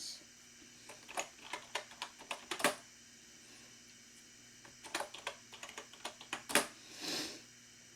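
Typing on a typewriter-style wireless keyboard: two runs of clicking keystrokes with a pause between them, then a brief soft rush of noise near the end.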